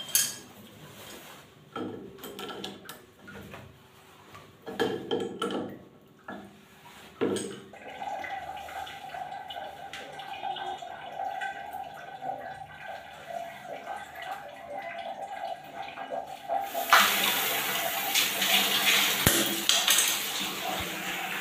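Light metallic clinks and knocks as a wall mixer tap's valve parts are fitted back in. About seventeen seconds in, water pours from the spout into a plastic bucket in a steady splashing stream: the repaired mixer is being tested for leaks.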